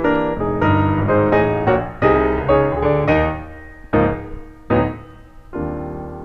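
Background piano music: a run of notes and chords, ending on a long held chord that fades near the end.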